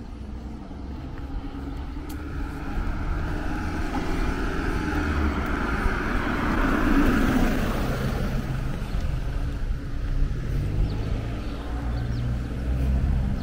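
A car passing by, its tyre and engine noise building to a peak about halfway through and then fading, over a steady low rumble.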